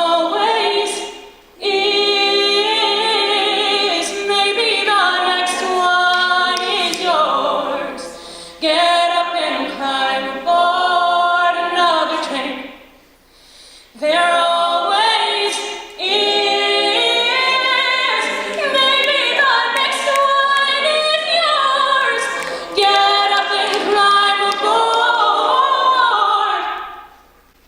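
A cappella vocal group singing in close harmony without instruments, in several held phrases with short breaks between them, and a final chord that fades away near the end.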